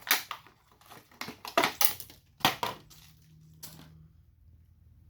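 Hands rummaging through a parts kit and its packaging: a run of sharp clacks and crinkles that stops about three seconds in, with one more click shortly after, leaving a faint low hum.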